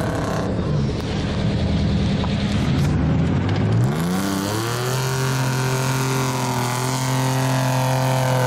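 Homemade off-road buggy's engine revving in deep mud. The revs climb about three to four seconds in and are held high and steady, with the wheels spinning and throwing mud.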